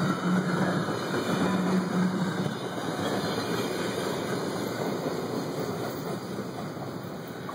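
Amtrak Silver Star passenger cars rolling past on the rails. The wheel-and-rail rumble fades steadily as the train pulls away.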